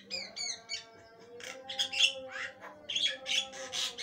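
Javan myna (jalak kebo) singing: a few quick falling whistles in the first second, then a run of harsh squawks and chirps, loudest about two seconds in.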